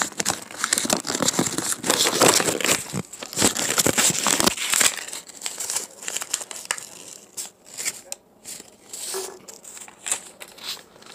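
A sheet of grid paper being handled and folded by hand, crinkling and rustling: dense crackling for the first four or five seconds, then lighter, scattered rustles and creasing.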